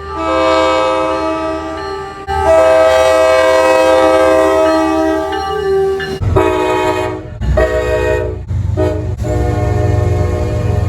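Locomotive multi-chime air horns sounding chords of several tones at once: two long blasts, then, with engine and rail rumble underneath, two long, one short and one long blast, the pattern of a grade-crossing warning.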